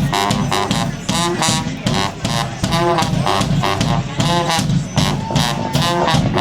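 Live street band playing a tune, melodic lines over a steady drum beat.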